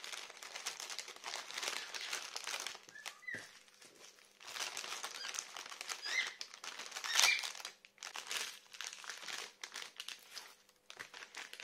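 Small plastic bags of diamond-painting drills crinkling and rustling as they are handled and packed back into the kit's clear plastic packaging, in three bursts with short pauses between.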